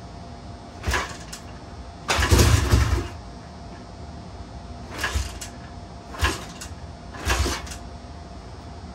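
Honda XL175's four-stroke single-cylinder engine being kick-started on its first start-up after a top-end rebuild: five short bursts as it is kicked over, the longest and loudest about two seconds in, and the engine does not keep running between kicks.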